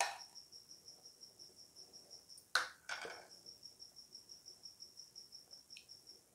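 A cricket chirping steadily, a high pulsing of about six chirps a second. Over it come a few short knocks and scrapes of a spoon on a bowl as spinach paste is scraped out, the loudest about two and a half seconds in.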